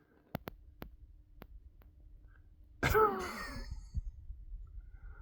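A few faint clicks, then about three seconds in a short breathy vocal sound with a wavering pitch that fades out.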